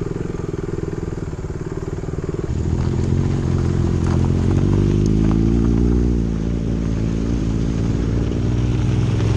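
Motorcycle engine running; it gets louder about two and a half seconds in, and its note then rises and falls as the bike changes speed.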